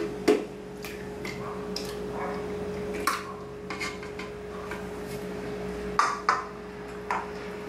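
A bowl tapping and clinking against a plastic blender jar as raw eggs are poured in: a few separate knocks, the loudest about a second in, over a faint steady hum.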